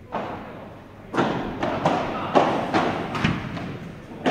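Padel rally: the ball struck back and forth by padel rackets in a run of sharp knocks, about two a second, each with a short ring in the hall.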